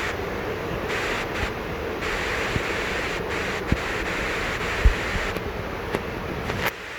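Heavy downpour of rain, a steady rushing hiss, with a few light knocks, the loudest about five seconds in. The rain noise drops off suddenly near the end.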